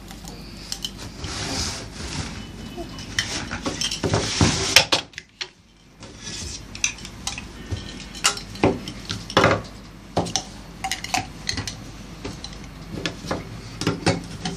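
Hard plastic toy pieces of a Play-Doh kitchen set clacking and knocking against each other and the tabletop as they are handled, in irregular clicks with a brief pause about five seconds in.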